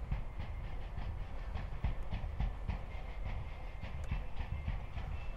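Outdoor background noise: a steady low rumble with faint, irregular clicks or knocks several times a second.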